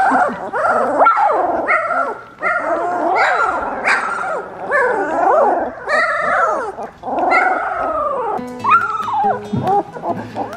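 Young chocolate Labrador puppies whining and yipping, one rising-and-falling cry after another, with music underneath.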